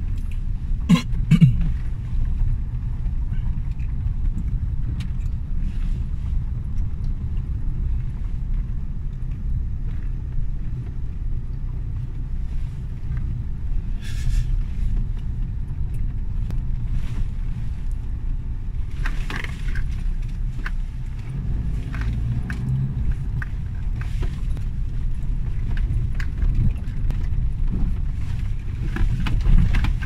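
Car driving over a rough dirt track, heard from inside the cabin: a steady low rumble of engine and tyres, with a few sharp knocks and rattles about a second in, around the middle and near the end.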